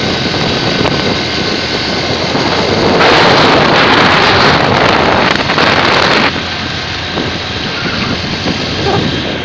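Wind buffeting the phone's microphone while riding a motorcycle, with the motorcycle running underneath. The wind noise surges louder from about three seconds in, then drops back a little after six seconds.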